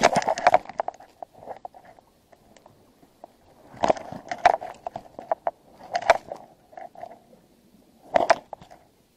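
Close crunching and rustling in four short bursts, at the start, about four seconds in, about six seconds in and near the end: footsteps on shore rocks and pebbles, and clothing and gear brushing against the camera.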